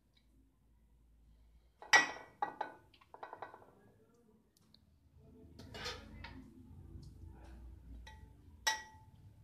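Metal spoon clinking against a glass baking dish while spooning and spreading thick masala, with soft scraping in between. There are several sharp clinks: the loudest comes about two seconds in, a quick run of lighter ones follows, and one ringing clink sounds near the end.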